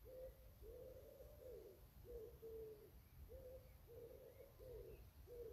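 Faint, unbroken run of low cooing notes from doves, about two a second. A few faint high chirps from small birds come in about three seconds in.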